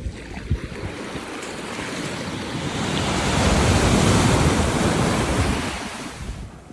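Surf washing up the beach: one wave's rush of water that swells to its loudest about four seconds in, then fades away.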